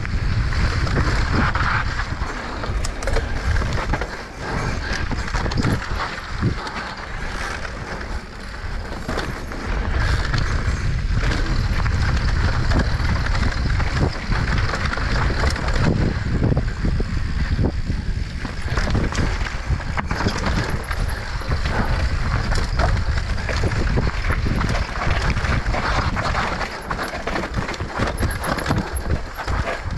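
Mountain bike riding down a rough dirt trail: wind buffeting the microphone with a heavy rumble, tyres rolling over dirt and roots, and the bike rattling and knocking over bumps.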